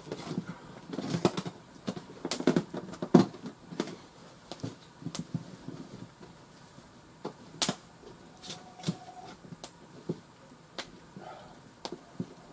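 Irregular knocks, clicks and short rustles of things being handled and set down on a table, busiest in the first few seconds and sparser after.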